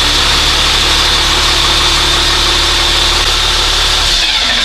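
Engine starter motor running continuously with a steady high whine, its solenoid stuck engaged after the relay was bypassed with a jumper wire, and the engine turning over and running along with it. It starts abruptly and does not let up.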